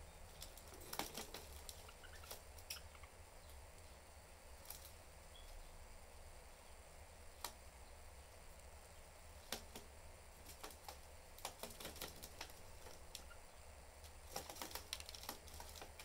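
Budgies pecking and cracking seeds at a seed dish: faint, irregular clicks, sometimes a few in quick succession, with a cluster of them near the end.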